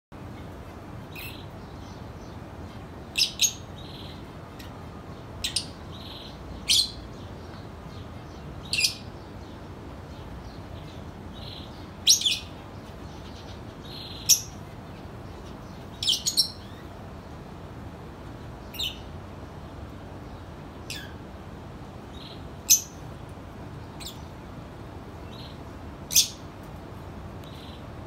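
Zebra finches calling: a dozen or so short, sharp call notes at irregular intervals one to three seconds apart, with fainter calls in between.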